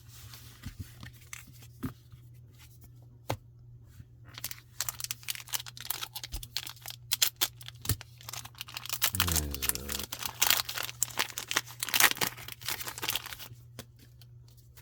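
Plastic booster pack wrapper being torn open and crinkled by hand: a few scattered handling clicks, then a dense run of crackling and tearing from about four seconds in until near the end.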